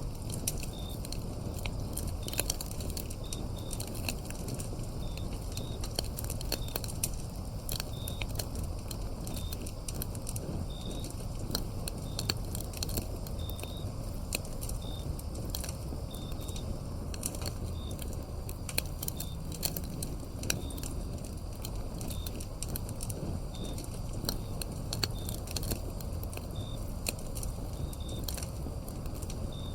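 Firewood burning with a steady low rumble and constant irregular crackles and pops. Over it, crickets chirp in short high pulses, about one or two a second.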